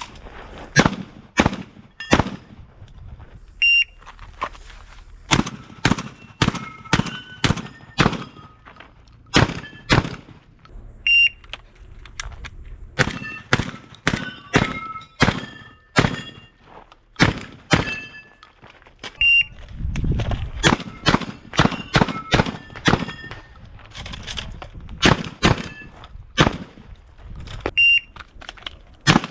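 Shotgun fired over and over in quick strings of shots, dozens in all, with short gaps between strings, as a shooter works through a practical shotgun competition stage.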